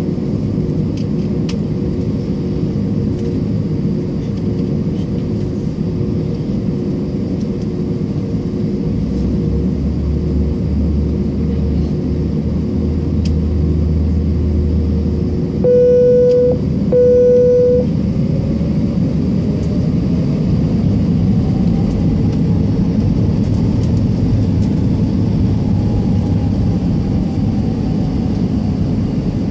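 Jet airliner cabin while taxiing: steady engine and air-system rumble with a constant hum. About halfway through come two identical electronic beeps, each just under a second long, about a second apart. A faint tone then slowly rises and falls.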